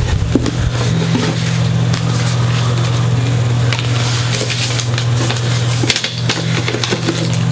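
A steady low electrical hum, with scattered light clicks and rattles of small parts being picked up and handled.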